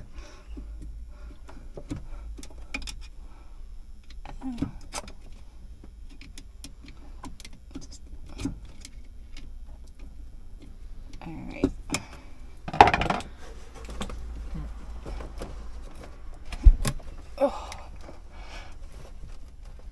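Hands working at a hose and its metal fittings in a cramped cabinet: scattered small clicks, knocks and rattles as a water-maker hose is worked loose, with a louder knock a little past halfway and a sharp click near the end, over a faint steady low hum.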